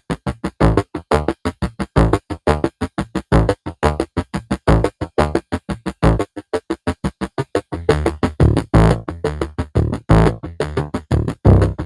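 Synthesizer music: a fast run of short, detached notes, about five or six a second, becoming denser and longer-held from about eight seconds in.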